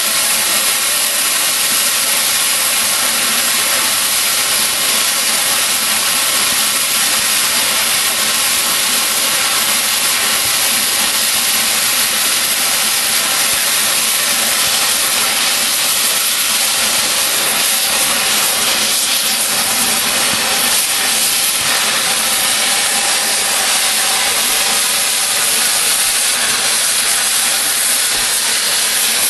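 Oxy-fuel cutting torch flame-cutting a thick steel railroad rail, running with a loud, steady, unbroken hiss.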